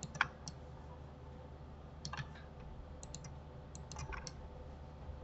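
Scattered clicks of a computer mouse and keyboard: a dozen or so short, sharp clicks in small clusters, over a faint steady hum.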